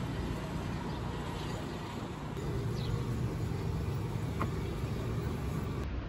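Steady low rumble of distant road traffic.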